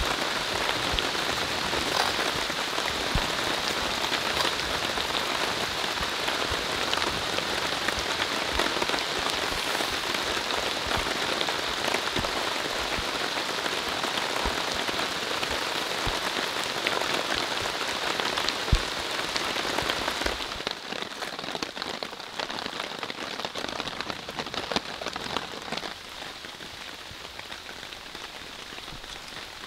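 Steady rain falling, a dense hiss dotted with sharp single drops, becoming suddenly quieter about two-thirds of the way through.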